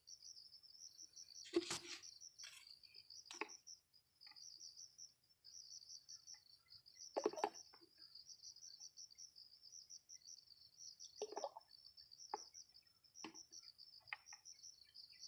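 Crickets chirring in a fast, unbroken high trill, faint. A few brief knocks and rattles come and go, from handling the plastic sprayer tank and bottle.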